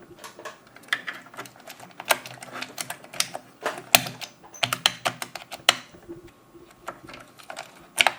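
New Enter keycap being fitted onto an Amiga A1200 keyboard and pressed to test it: a string of sharp, irregular plastic clicks and clacks.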